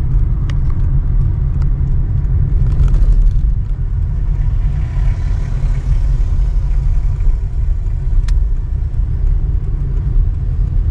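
Steady low rumble of a Toyota Camry's engine and tyres heard from inside the cabin while driving, with a swell of road hiss about halfway through.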